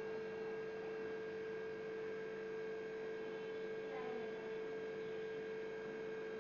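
Steady electrical hum: one even, unchanging tone over a faint background hiss, with a few faint short sounds about four seconds in.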